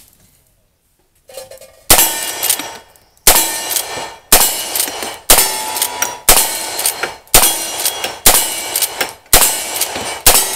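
Lever-action rifle firing a rapid string of nine shots, about one a second. Each shot is followed by the ringing clang of a struck steel target.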